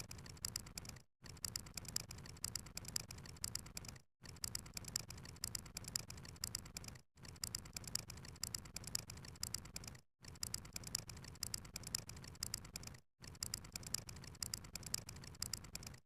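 Rapid run of sharp clicks, like a fast counter's tick sound effect. It plays in stretches of about three seconds, each cut by a brief silent gap, five gaps in all, and it stops at the very end.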